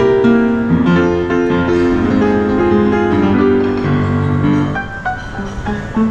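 Background music led by piano, a steady melodic instrumental passage.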